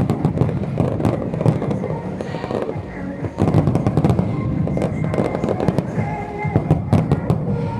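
Aerial firework shells bursting in quick succession, a dense run of bangs and crackles over a continuous rumble, with music playing along with it.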